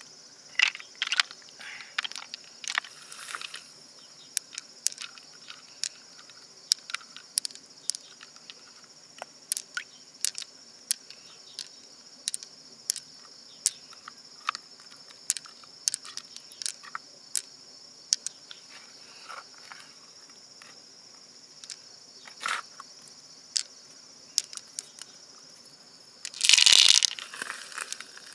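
Sharp, irregular clicks of pearls knocking against each other and against the mussel shell as they are picked out of a giant freshwater mussel, over a steady high-pitched insect drone. Near the end comes about a second of louder scraping noise.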